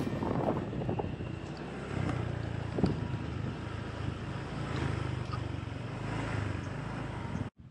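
Small motorbike engine running as the bike rides along, with wind noise on the microphone; the sound cuts off suddenly near the end.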